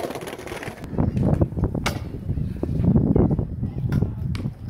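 Stunt scooter's wheels rolling and rumbling on smooth concrete, with sharp clacks of the scooter against the ground during warm-up tricks: one about two seconds in and two close together near the end.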